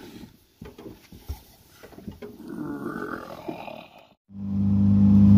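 Faint handling clicks and a soft rough noise, then about four seconds in a boat motor cuts in loud, running steadily with a low, even hum.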